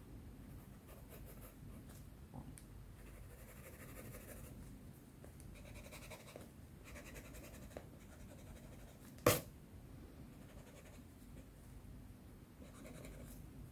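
Pencil strokes scratching on sketchbook paper in short bouts, with one sharp click about nine seconds in.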